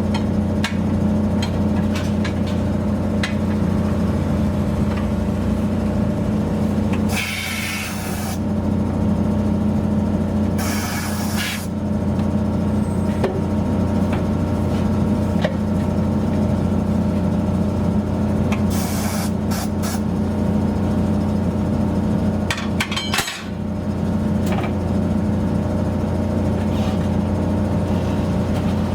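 Steady electric machine hum in a tire shop, with four short bursts of compressed-air hiss and a few light tool clicks.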